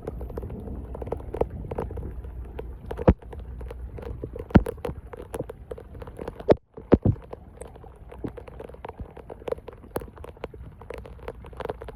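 Debris being cleared from a flooded street storm drain: irregular knocks and splashes over a steady low wash of water. The sound cuts out for an instant a little past halfway.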